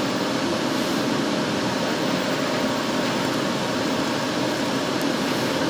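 UD-3206H wide-format inkjet printer running as it prints, a steady mechanical whir from its fans and travelling print-head carriage.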